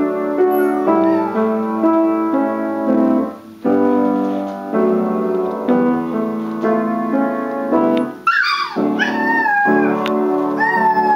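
Australian terrier puppy howling along to piano: a faint falling whine about a second in, then from about eight seconds in three high, wavering howls that rise and fall, louder than the piano. Piano chords play throughout.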